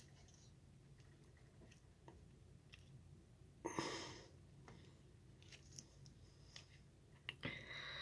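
Near silence with faint rustling and small clicks of rolling paper being worked between the fingers as a joint is rolled by hand. Two short breaths, about halfway and near the end.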